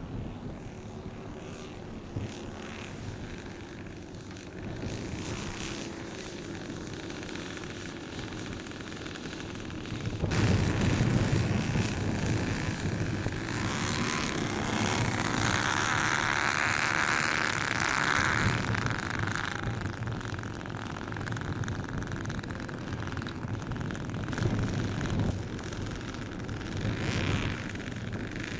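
Petrol engines of a large-scale model Handley Page HP42, four Zenoah 22cc two-strokes turning its propellers, running as the model lands and taxis. The sound jumps suddenly louder about a third of the way in. A higher-pitched buzz stands out for several seconds in the middle.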